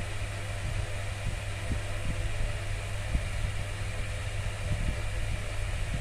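Steady low hum with an even hiss of room background noise, like a fan or air conditioner running, with a few faint soft knocks.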